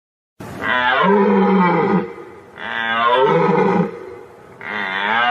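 A person's loud, drawn-out yawns, three in a row, each starting high and sliding down in pitch.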